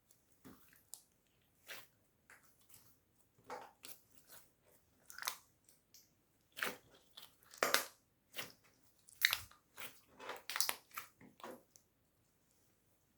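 Slime being squished and pressed by hand, making irregular short squelches and crackling clicks that stop about a second and a half before the end.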